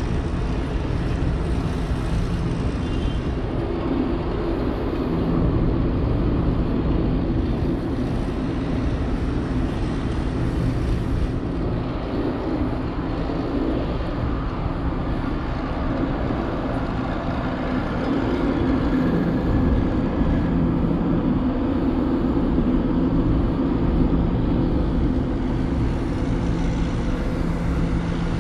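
Steady low mechanical hum over a continuous rumble of harbourside city noise, swelling slightly twice.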